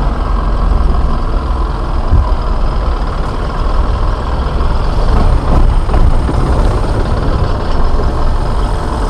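Fishing boat's engine running steadily, a loud low rumble.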